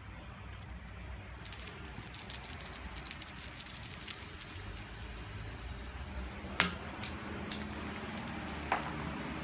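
A cat's small plastic toy ball with a rattle inside, rattling as it rolls and is batted, in two spells. Between the spells, about two-thirds of the way in, come three sharp knocks, the loudest sounds.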